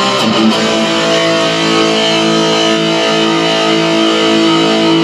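Electric guitar through a Marshall MG15 DFX amp's built-in distortion: a distorted chord is struck about half a second in and left to ring, sustained and full-bodied.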